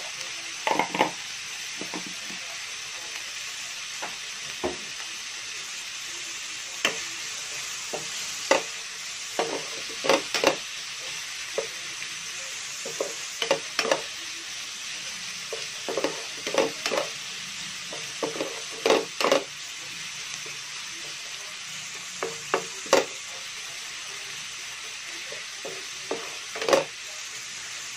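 Sliced vegetables sizzling in a non-stick frying pan while a wooden spatula stirs them, knocking and scraping against the pan at irregular intervals over a steady frying hiss.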